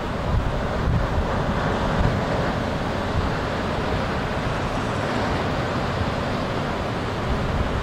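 Wind buffeting the microphone in uneven gusts, heaviest in the first couple of seconds, over a steady wash of ocean surf.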